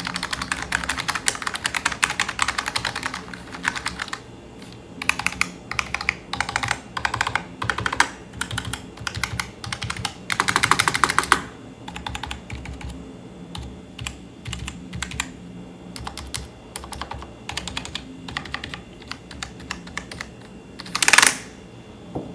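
Typing on a Wisfox budget RGB keyboard, which the owner takes to have membrane switches: fast runs of key clicks with short pauses between them, thinning out later. Near the end there is one brief, louder burst.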